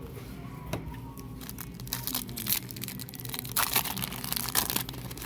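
Foil booster-pack wrapper crinkling and tearing as a trading-card pack is opened, a dense run of crackles strongest in the second half.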